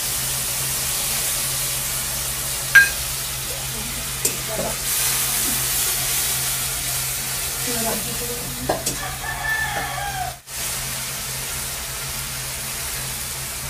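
Spiced masala sizzling in hot oil in an aluminium kadai while a metal spatula stirs and scrapes it, with a sharp clink of metal on the pan about three seconds in and lighter clinks a little later.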